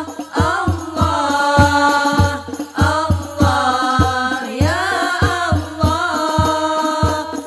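Arabic devotional sholawat singing: voices holding long, ornamented melodic lines over steady drum beats, about three a second.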